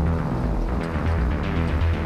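Background music with a strong, changing bass line.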